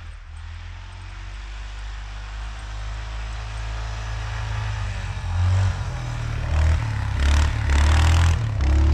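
Yamaha Grizzly ATV engine approaching and growing steadily louder, then revving in uneven bursts over the last few seconds as the quad pushes through deep snow.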